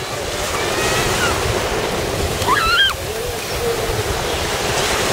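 Small waves breaking and washing up a sandy beach, with wind on the microphone. A short call from a voice about halfway through.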